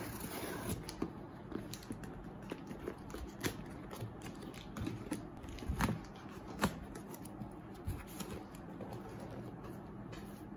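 Scissors cutting through packing tape on a cardboard parcel, then the tape pulled away and the cardboard flaps opened: scraping and rustling with many small clicks and a few sharper knocks.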